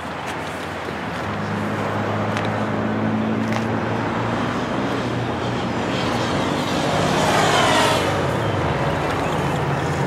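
A motor vehicle running nearby over a steady rush of traffic noise, with a low hum that starts about a second in and grows louder near the end.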